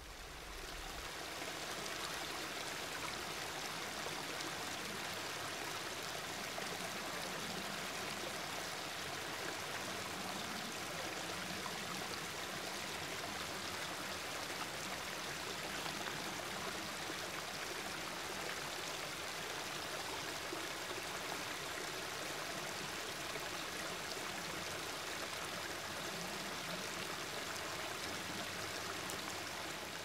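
Water of a small stream flowing, a steady, even rush with no breaks.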